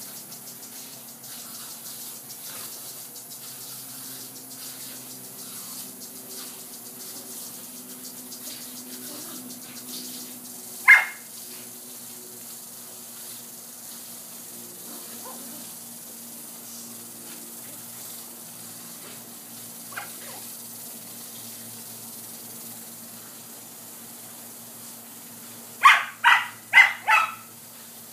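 Border collie puppies barking: one sharp bark about a third of the way in, a fainter one later, and a quick run of four barks near the end. Under the barks runs the steady hiss of a garden sprinkler's spray.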